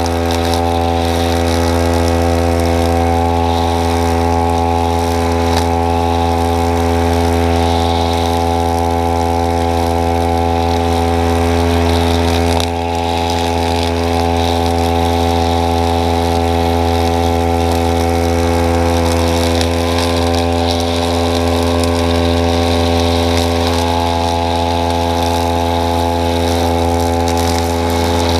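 Petrol brush cutter with a metal blade running steadily as it cuts overgrown grass and weeds. Its engine note dips briefly about halfway through, then picks up again.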